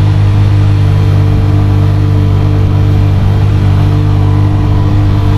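Motorcycle engine running at a steady speed, a constant low hum with road and wind noise over it.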